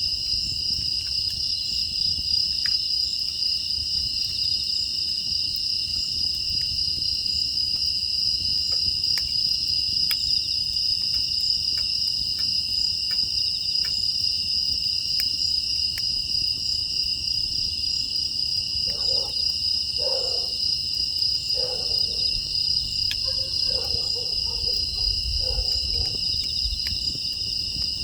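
A steady chorus of crickets and other grass insects chirping, with faint scattered crackles from a wood fire. From about two-thirds of the way in, a dog barks faintly several times, about once a second.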